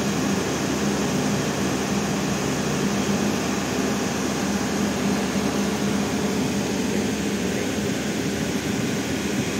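Steady machine drone with a constant low hum, unchanging throughout.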